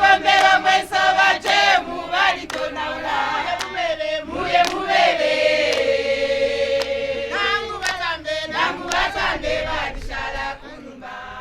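A group of voices singing together, with a long held note about halfway through; the singing fades down shortly before the end.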